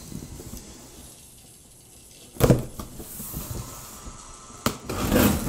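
Handling of a sealed cardboard box: a sharp thump about halfway through, a crisp click near the end, then a brief rustle.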